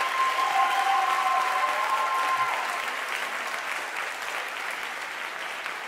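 Audience applauding at the end of a stage number, the clapping slowly fading.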